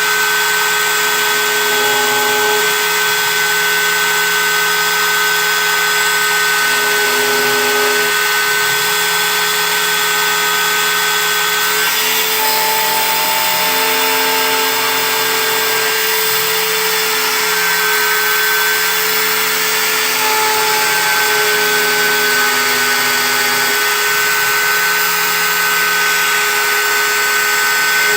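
CNC engraving machine running: a steady, loud motor whine over cutting noise, with several tones that step up and down in pitch every few seconds as the machine's motors change speed.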